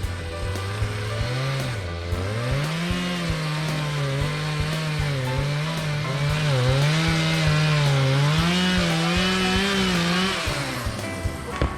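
Two-stroke chainsaw with an 18-inch bar cutting into a large tree, its engine pitch rising under throttle about two seconds in and wavering up and down as it bogs and recovers in the cut, then dropping away near the end. Background music runs underneath.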